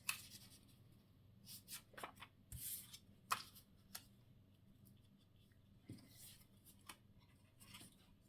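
Faint rustling of paper pieces and small taps as craft papers are handled and placed on a tag, with one longer rustle a little after two and a half seconds.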